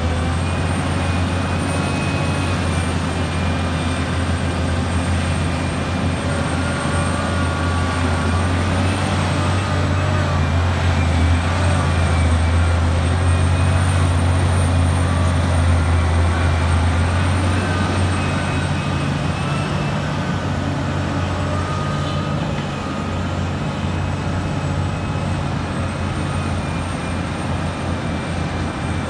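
Liebherr 984 mining excavator's engine running under load as it digs and loads, a steady deep drone with a thin high whine above it, swelling for several seconds about a third of the way in.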